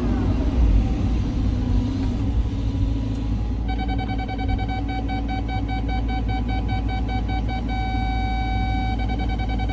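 Cat 323 hydraulic excavator's diesel engine running steadily under load with a deep rumble. From about four seconds in, a high tone pulses rapidly, holds steady for about a second, then pulses again.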